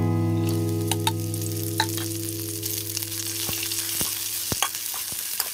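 Chicken legs frying in hot oil with a steady sizzle, a utensil clicking against the pan now and then as they are stirred. A guitar chord rings on and fades away over the first few seconds.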